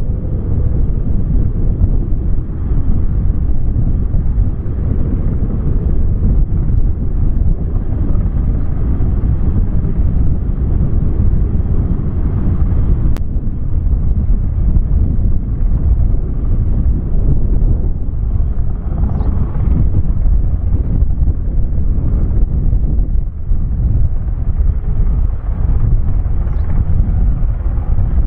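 Lockheed C-130H Hercules' four Allison T56 turboprop engines giving a loud, steady low rumble.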